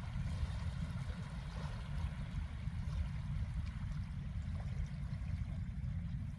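Sea waves washing steadily on a beach shore, with a constant low rumble underneath.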